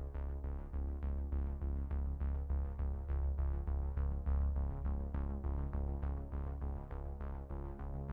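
Background electronic music with synthesizer, a heavy bass line and a steady pulse of about four notes a second.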